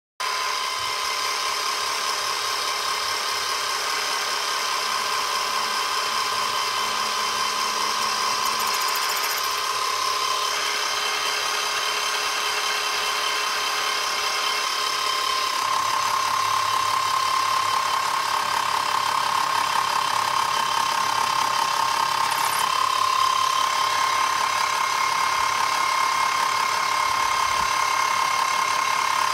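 Small bench drilling machine running at high speed with a steady high whine while a fine drill bit bores holes in a brass model steam engine cylinder.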